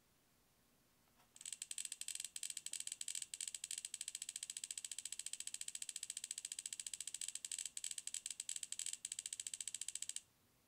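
The Tiny Decisions randomizer wheel spinning on an iPad, its speaker playing a rapid run of sharp, high ticks. The ticks start about a second and a half in and cut off suddenly about ten seconds in as the wheel stops.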